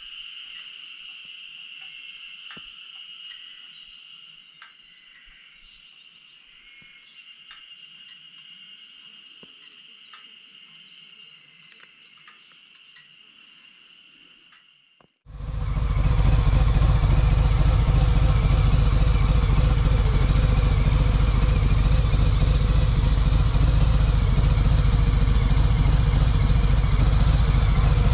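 A steady insect drone with scattered bird chirps. About halfway through, a Harley-Davidson Sport Glide's Milwaukee-Eight 107 V-twin starts and idles steadily through Screamin' Eagle 4.5-inch Street Cannon mufflers, with a deep, loud exhaust note.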